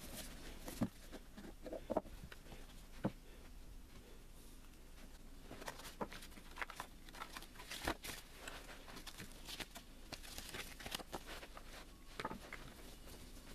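Hands unboxing a small cardboard box: the lid and card packaging are handled, and paper inserts and cables rustle, with sharp light taps of card on card about 1, 2 and 3 seconds in and again near 8 seconds.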